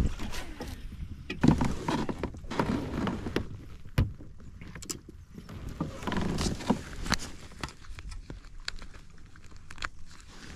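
Irregular knocks, clicks and rustles from handling gear on a fishing kayak, with a few duller thumps.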